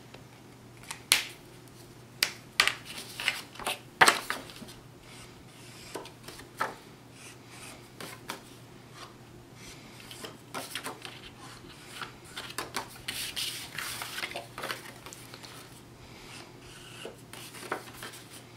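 Marker tip rubbed along the edges of paper and cardstock pieces, a soft scratchy scraping, with the paper handled against the cutting mat. Several sharp clicks and taps come in the first few seconds, the loudest about four seconds in.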